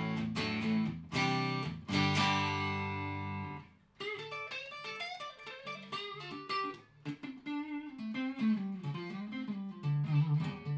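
Electric guitar, a Stratocaster with noiseless pickups, played through a stompbox compressor set low for subtle limiting. A few chords are strummed and left to ring, then cut off sharply just before halfway. After that come picked single-note lines, and another chord is strummed near the end.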